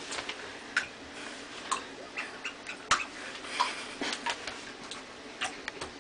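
A Shih Tzu puppy's paws stepping and paddling in shallow bathwater in a tub. It makes small, irregular splashes and ticks, about two a second.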